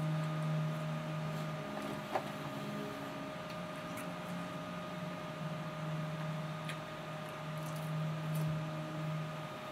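Quiet eating noises of someone picking chicken pieces out of a cardboard box and chewing, with a sharper click or rustle about two seconds in. Underneath runs a steady faint electrical whine and a low hum that comes and goes.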